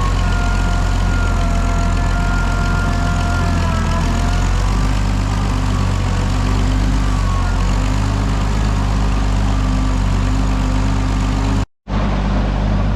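An Oliver 77 tractor's six-cylinder engine running steadily, its note shifting slightly about four to five seconds in. The sound drops out for an instant near the end.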